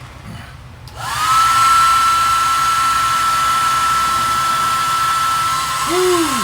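Blow dryer switched on about a second in: its motor whine rises quickly and settles into a steady high whine over rushing air, blowing on a lit stormproof match. A short lower arching tone comes near the end.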